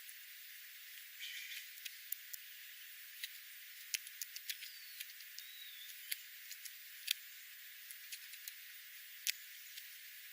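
Small birds giving scattered sharp ticks and clicks, with two brief high chirps a few seconds in, over a steady faint hiss.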